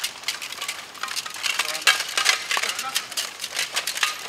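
Padded LARP swords striking shields and plate armour in close fighting: a rapid, irregular run of knocks and clacks, with voices in the background.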